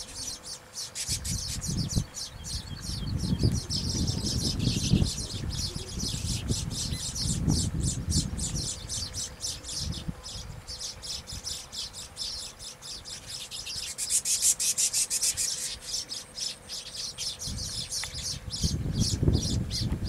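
A flock of baya weavers chattering at their colony of hanging woven nests: a dense, continuous run of rapid high chirps, heaviest a little past the middle, over an intermittent low rumble.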